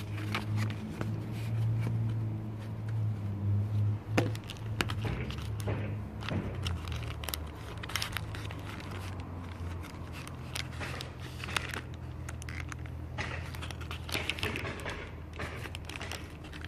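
A plastic bag holding liquid crinkling and rustling as it is squeezed and handled inside a styrofoam to-go box, with many scattered sharp crackles and clicks.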